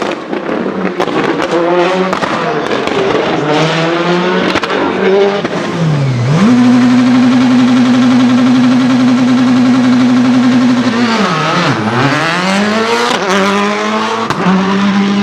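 Citroën Xsara WRC rally car's turbocharged 2.0-litre four-cylinder engine blipped up and down, then held at a steady pitch for about four seconds on launch control, before the revs fall and climb again near the end.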